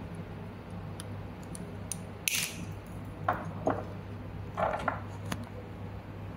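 Side cutters snipping off the excess ends of twisted-pair copper conductors laced into a keystone jack's wire cap: several short, sharp snips and clicks spread across a few seconds. A steady low hum runs underneath.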